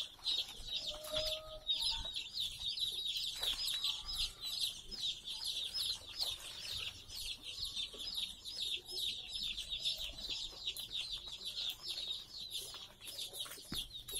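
A brood of day-old desi and Kuroiler chicks peeping nonstop, many short, high cheeps overlapping.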